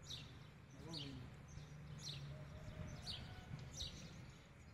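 A bird calling over and over, a short high chirp about once a second, over a faint, steady low rumble.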